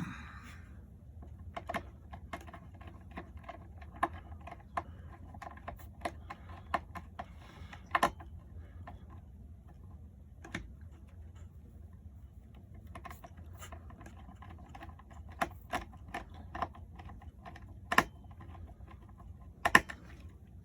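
Irregular small clicks and taps of hands working wires and small tools at a terminal block, a few sharper knocks standing out, over a faint steady low hum.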